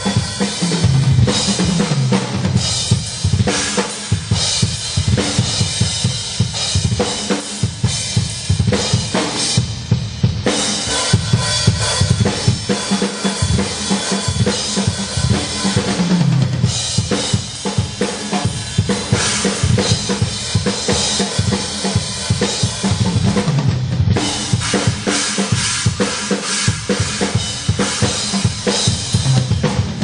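TAMA drum kit played at sound check: steady kick, snare and cymbals, with fills that run down the toms from high to low, about three times.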